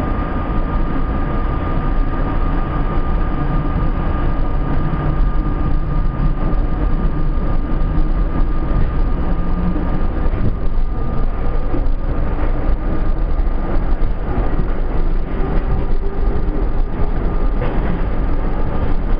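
R32 subway car running at speed through the tunnel, heard from inside the front car: a continuous rumble of wheels on rail with a steady high whine and a few sharp clicks.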